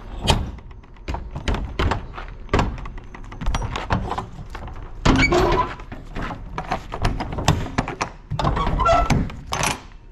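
Rear doors of a box truck's riveted metal body being swung shut and latched: a run of metal clanks and knocks from the doors and their locking bars, with longer scraping clatters about five seconds in and again near the end.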